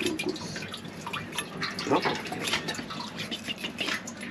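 Tap water running and dripping into a kitchen sink as a freshly caught trout is rinsed clean of sand, with irregular small clicks and taps throughout.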